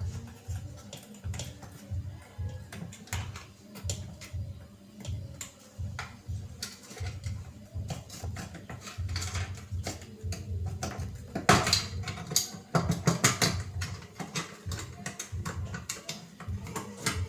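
Small metal parts and tools clicking and knocking as a washing-machine gearbox is handled, with a louder cluster of clatter about twelve seconds in, over background music.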